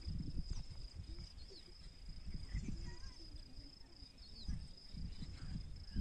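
A steady high insect trill, cricket-like, with a few brief bird chirps over it and a low rumble beneath.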